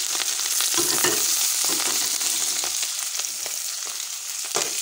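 Freshly added shredded cabbage sizzling steadily in hot oil in a frying pan.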